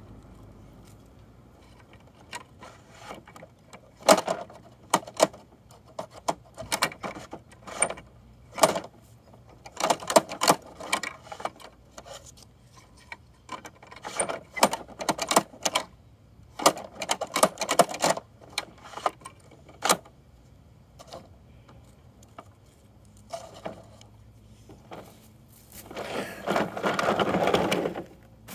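Hard plastic toy trash bins and their contents clattering and knocking in scattered bursts as they are handled. Near the end, a denser rattle of about two seconds as the toy garbage truck is rolled away over the dirt.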